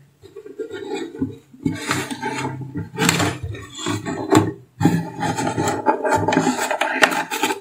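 Handling noise of an amplifier's metal panel and circuit board being worked out of a chipboard cabinet by hand: irregular scraping and rubbing with sharp knocks of metal against wood.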